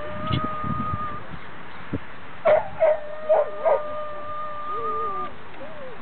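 A dog whining in long, steady, high-pitched whines, with four sharp yips in quick succession around the middle and a short falling whimper near the end.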